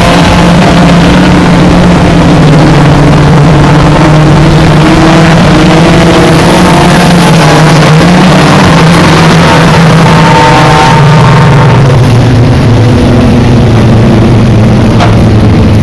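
Hot rod race car engines running loud and steady, their pitch drifting slightly up and down, with a sharp click near the end.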